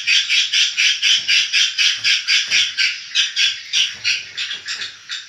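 Swiftlets chirping: a dense, rapid run of short high chirps, about eight to ten a second, thinning out near the end.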